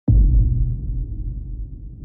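A deep, low musical boom that starts suddenly and fades away over two seconds, opening the soundtrack music.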